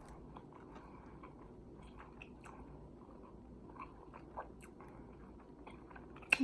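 Close-miked chewing of a mouthful of greens: soft, scattered mouth clicks and smacks, with one sharp smack near the end.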